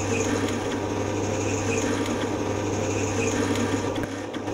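Sachet packing machine (form-fill-seal) running: a steady mechanical hum with faint, regular clicking.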